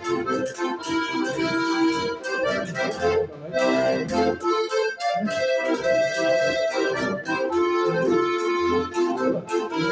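Three diatonic button accordions of the Styrian harmonica type playing a tune together in sustained chords over a pulsing bass. A steady clicking percussion beat runs underneath.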